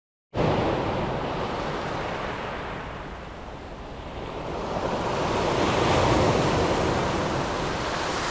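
Sea surf: waves washing on the shore in a steady rush that dips a little about three seconds in, then swells again as another wave breaks.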